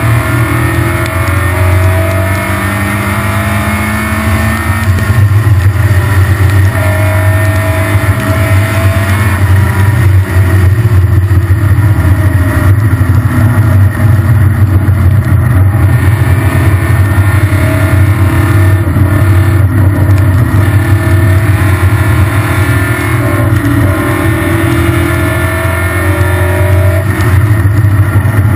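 Triumph Spitfire race car's four-cylinder engine heard from inside the open cockpit, running hard under racing load, its pitch rising as it accelerates and dropping back as it lifts for corners several times.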